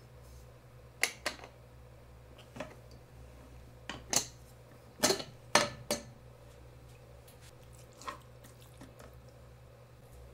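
Sharp clinks and knocks of kitchen cookware being handled: a pressure cooker pot and its utensils, about nine short separate strikes with the loudest cluster between about four and six seconds in, over a faint steady hum.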